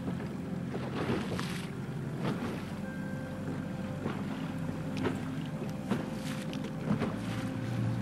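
Rigid inflatable boat's motor running steadily under way, with the hull slapping through the waves in irregular splashes about once a second.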